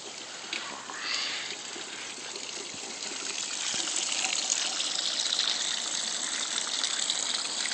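Water rushing and splashing in a steady hiss that grows a little louder about four seconds in.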